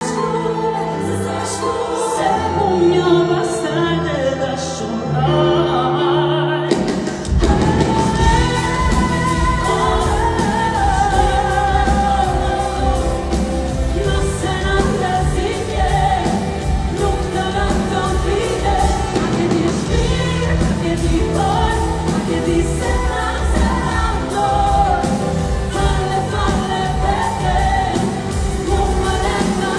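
A woman singing an Albanian pop song live into a microphone over band music. It opens on sustained chords, and about seven seconds in a steady beat with bass comes in under the voice.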